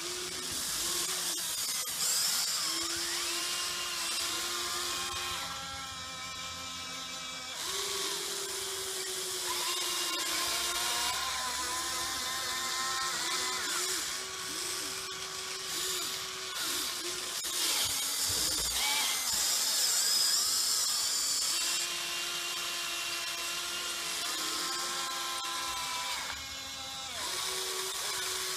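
Huina 580 RC excavator's electric drive motors whining as it digs. The pitch jumps between levels and slides up and down as the boom, arm, bucket and swing functions start and stop.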